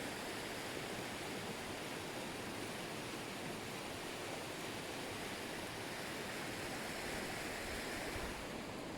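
Jagala waterfall's water pouring in a steady, even rush. Near the end the hiss thins a little and low wind buffeting hits the microphone.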